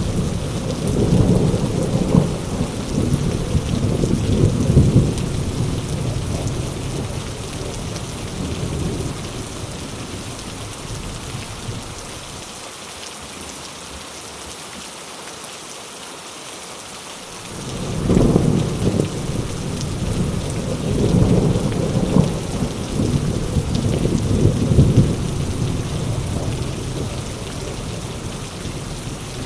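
Heavy rain falling steadily, with rolling thunder. The first rumble slowly dies away, a new peal breaks out suddenly about two-thirds of the way through, and it too fades slowly.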